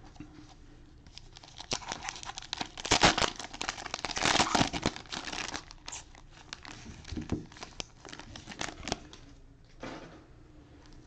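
Cellophane wrappers of football trading-card cello packs crinkling and tearing as the packs are ripped open and handled. The crackling starts about a second in, is busiest over the next few seconds, and thins out toward the end.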